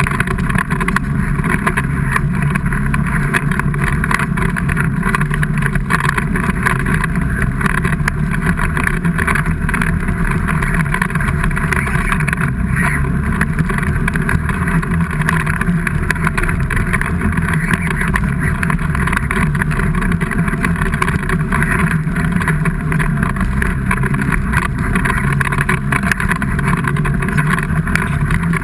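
A motor vehicle engine running steadily and loud, with no revving up or down.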